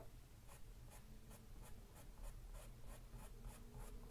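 Faint, quick scratches of a paintbrush flicking short strokes across a stretched canvas, about four strokes a second.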